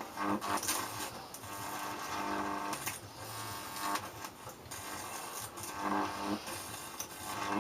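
Microwave oven transformer buzzing under load as it overpowers a compact fluorescent lamp's circuit board, with sharp cracks and sizzles about once a second from the board's parts breaking down and venting.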